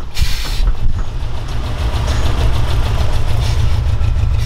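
Lowered mini truck's engine and exhaust running with a steady low rumble as the truck rolls along, with a brief hiss of wind or road noise near the start.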